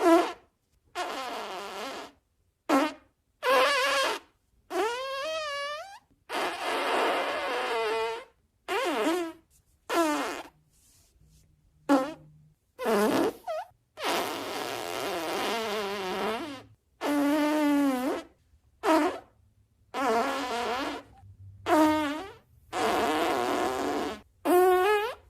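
Fart sounds, one after another with short silent gaps, more than a dozen in all: some brief pops, others drawn out for two or three seconds with a pitch that wobbles up and down.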